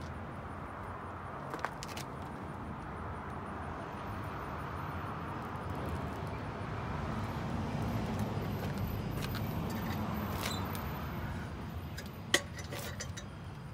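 Devil Forge propane melting furnace's burner running steadily, with a few sharp metal clinks of tongs against the crucible and a clink near the end as the lid goes back on.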